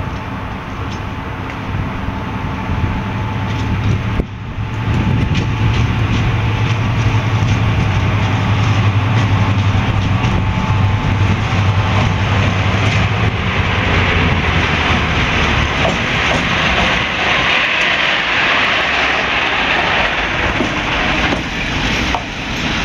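A Class 55 Deltic diesel-electric locomotive approaches slowly and draws alongside, its Napier Deltic two-stroke engines making a steady low drone. The drone dies away about two-thirds of the way through as one of the two engines is shut down while the locomotive is still rolling, leaving a louder hiss as it passes close by.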